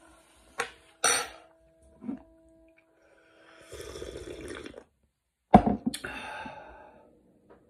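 A man slurps a drink from a ceramic mug for about a second, then sets the mug down on the table with a sharp knock and lets out a long breath.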